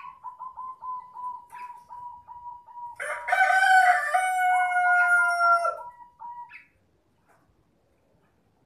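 Rooster crowing: one long, loud crow of nearly three seconds, starting about three seconds in and ending with a falling note. A fainter rapid pulsing note comes before it.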